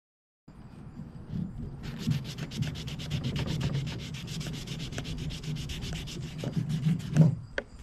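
Hand sanding of a new hickory hatchet handle with 120-grit sandpaper: quick, even back-and-forth scratchy strokes, about seven or eight a second, starting about two seconds in and stopping shortly before the end, followed by a couple of light knocks.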